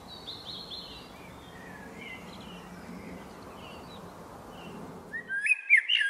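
Faint birdsong chirps over a steady outdoor hiss. Near the end, a male Eurasian blackbird starts singing, louder, with a few clear whistled notes that slide upward.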